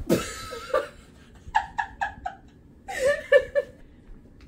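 Laughter: two short bouts of high-pitched 'ha-ha-ha' pulses, about four quick pulses each. The first bout starts about a second and a half in and the second about three seconds in.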